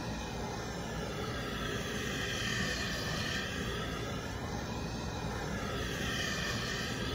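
Gas blowtorch flame running steadily, its hiss wavering as it is played over the lead to soften it for working.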